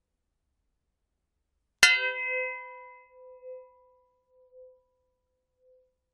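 A metal gong struck once, a little under two seconds in: a bright clang that rings on in several tones. The lowest tone wavers as it fades over about four seconds.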